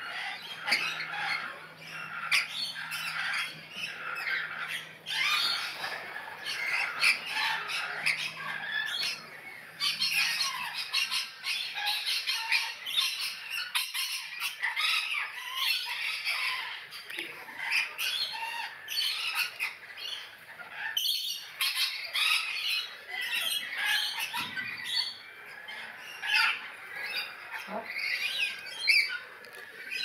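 Rainbow lorikeets screeching and chattering, a dense, unbroken stream of short shrill calls.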